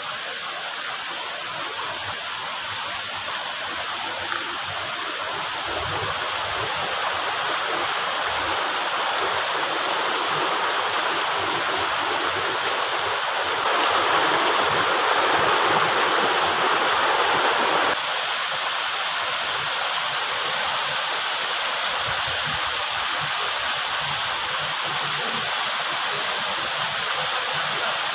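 Waterfall: water rushing in a steady roar. It grows a little louder over the first several seconds, and is louder still for a few seconds just past the middle.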